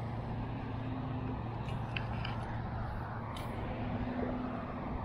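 Steady low outdoor rumble with a constant low hum under it, and a few faint high ticks about two to three and a half seconds in.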